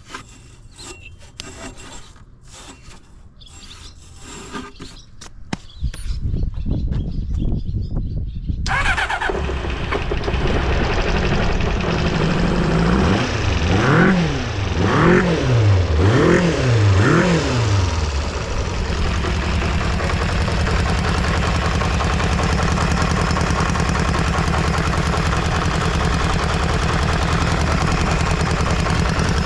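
Kawasaki GPZ400R's inline-four engine being started: a few clicks, then the starter cranks and the engine catches, gets several quick revs that rise and fall, and settles into a steady idle. It runs without abnormal noise and revs up cleanly.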